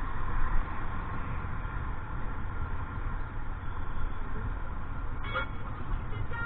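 Steady low rumble of motor vehicle noise, with a few short tones about five seconds in.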